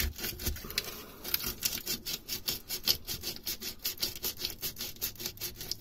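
Hand sanding of a lead-acid battery terminal post, quick even back-and-forth rubbing strokes at about five a second, cleaning off acid corrosion.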